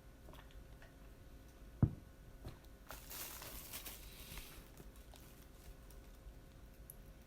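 Close-up eating sounds of a person eating yakitori skewers: small scattered chewing clicks, a single sharp low thump about two seconds in, then a hissing noise lasting about a second and a half.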